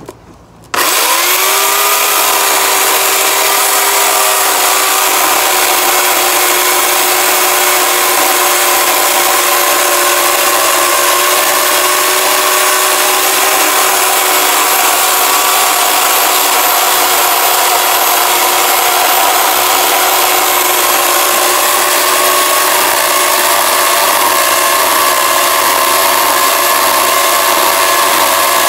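Corded electric Craftsman chainsaw switched on about a second in: its motor spins up quickly and runs at a steady, high whine while the chain cuts into the roots of a tree stump.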